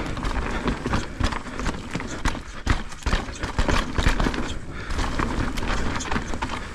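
Santa Cruz Megatower full-suspension mountain bike ridden down a rough dirt trail: tyres rumbling over the ground, with frequent sharp knocks and rattles from the bike.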